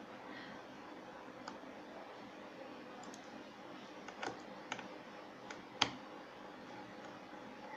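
A few light, scattered metallic clicks of a Torx screwdriver working the small screws that hold a hard drive's logic board, the sharpest about six seconds in.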